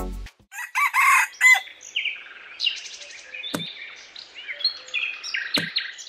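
Chickens calling: crowing calls in the first second or so, then a string of shorter clucks and chirps, with two sharp clicks about three and a half and five and a half seconds in.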